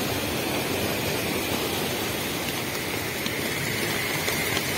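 Steady rush of heavy rain falling over a swollen, flooding river, with now and then a faint tick of a drop.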